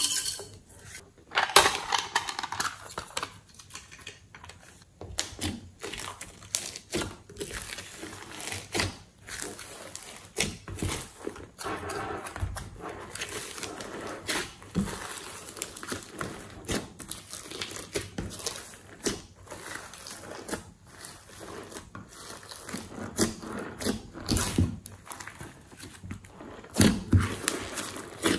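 Glitter shaken out of a tube onto slime near the start, then hands kneading and stretching thick slime loaded with glitter and sequins: sticky, irregular crackles and clicks.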